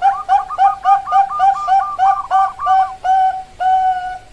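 Bangkok zebra dove (perkutut) singing: a rapid run of short coos, about four a second, ending in two longer drawn-out notes.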